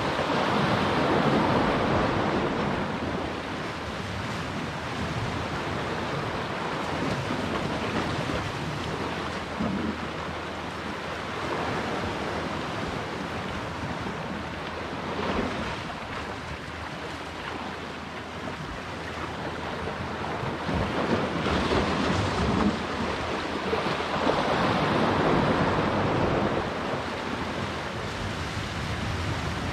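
Sea waves surging and breaking against shoreline rocks, the white water rushing and draining back, swelling louder near the start and again after about twenty seconds. Wind buffets the microphone.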